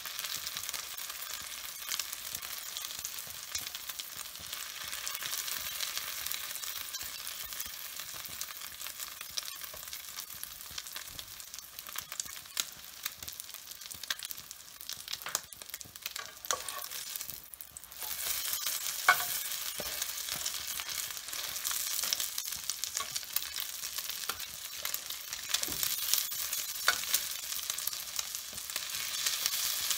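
Egg omelette sizzling in hot oil in a non-stick frying pan, with scattered clicks and scrapes of a metal spatula against the pan as the omelette is folded and pressed. The sizzle dips briefly a little past halfway, then comes back up.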